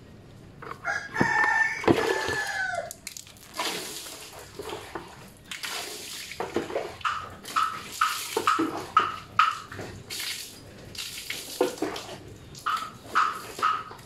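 A rooster crows once, one to three seconds in. Then water is thrown by the scoopful onto a motor scooter and the wet tiles, splash after splash, while a bird gives runs of short repeated calls, about three a second.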